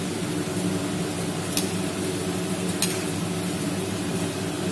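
Gulab jamun balls frying in hot oil in a kadai: a steady sizzle over a low hum, with two light clicks in the middle.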